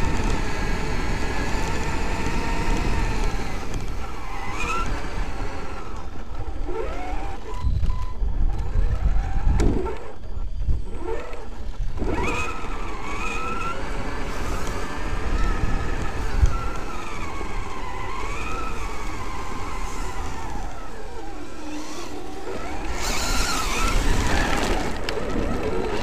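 Traxxas X-Maxx RC monster truck driving, its brushless electric motor whining in pitch that rises and falls with the throttle over a rumble from the drivetrain and tyres on rough ground. A brief louder hiss near the end.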